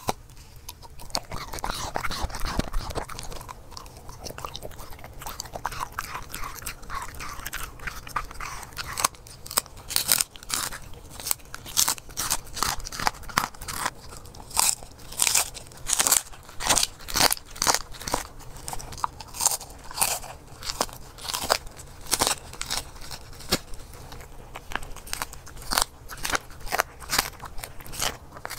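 A corgi chewing and crunching food taken from a hand. The chewing is softer for the first several seconds, then from about nine seconds in comes a run of loud, sharp crunches, about one or two a second.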